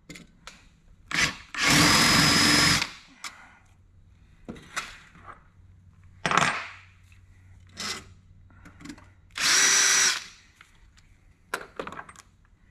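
Cordless drill spinning a countersink cutter into rivet holes in a piano hinge, in short runs. Two of the runs are longer, about a second each, one a second or two in and one near the ten-second mark. Shorter blips and clicks of handling fall between them.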